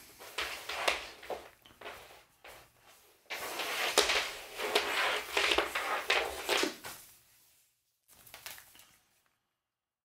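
Audio cable being coiled by hand over the forearm and elbow: the cable's rubber jacket swishes and rubs against hands and arm, with light knocks, in repeated irregular strokes. It stops about seven seconds in, a brief rustle follows near nine seconds, then the sound drops to dead silence.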